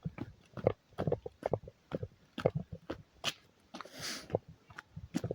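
Footsteps walking on a dirt trail, about two steps a second, with a short rushing noise, like a breath or a gust on the microphone, about four seconds in.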